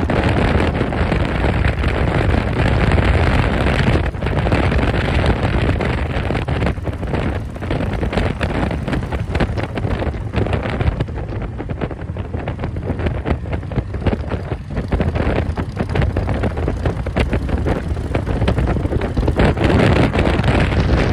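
Wind buffeting the microphone of a motorcycle riding at road speed, over a steady low rumble of engine and road.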